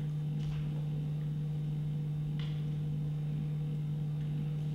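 Steady low hum, with two faint brief noises about half a second and two and a half seconds in.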